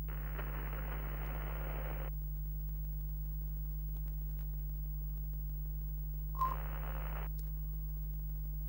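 Retro television sound effect: a steady low electrical hum with a burst of static hiss for about two seconds at the start, and a shorter burst with a click about two-thirds of the way in.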